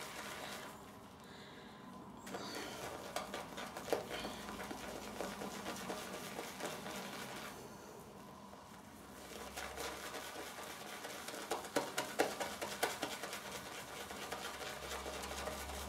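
Shaving brush whisking wet soap lather in a small bowl: a dense run of fine, quick clicks, easing off briefly twice.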